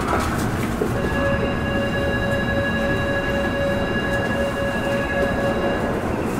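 Tokyo Metro Ginza Line 1000 series subway train pulling away from a station, its running rumble joined about a second in by a steady electric whine that stops near the end.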